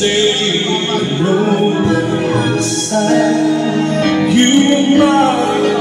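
A man singing karaoke into a microphone over a recorded backing track.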